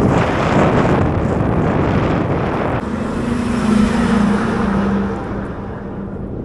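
Heavy wind noise buffeting the microphone. From about three seconds in, a passing vehicle, most likely a highway truck, adds a steady engine hum whose pitch drops slightly as it goes by.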